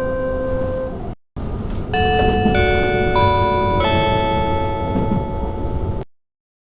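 Onboard chime of a 657-series limited express playing a melody of layered bell-like notes over the PA, with the train's low running rumble beneath. It breaks off briefly about a second in, plays again, and cuts off near the end.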